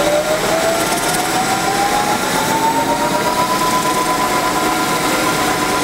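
Concrete Genie floor grinder's 5-horsepower Siemens electric motor starting up: a whine that rises steadily in pitch for about three seconds as the motor spins up, then holds at a steady pitch. The machine runs quietly.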